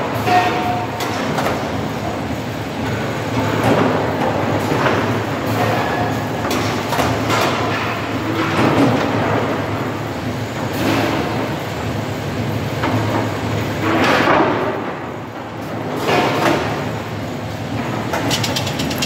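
Lumber stacking machine running: a steady mechanical drone with repeated knocks and clatters as its lift lowers a stack of short wooden boards onto a roller conveyor.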